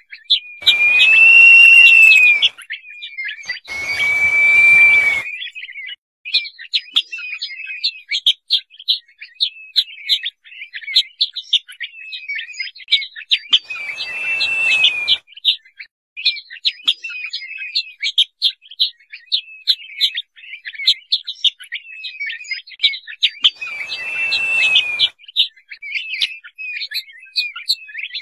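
Crested partridge (roul-roul) giving four drawn-out whistles, each rising and then falling slightly. Two come close together near the start and the others follow about ten seconds apart, with a fast run of short high chirps in between.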